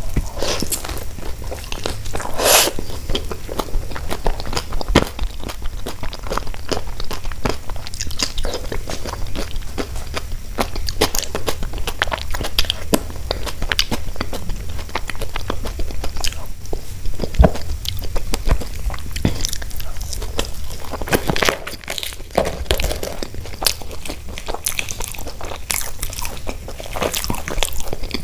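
Close-miked eating sounds: big bites into crisp fried Indian bread, then chewing, with many small, sharp crunches throughout.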